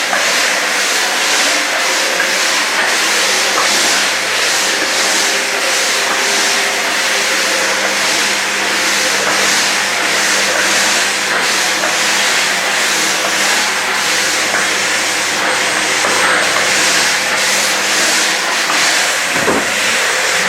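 AEG VX4 bagged canister vacuum cleaner running steadily at about two-thirds power, with a steady motor hum under a loud airy hiss. The hiss swells and fades in a regular rhythm, as the nozzle is worked back and forth over the floor.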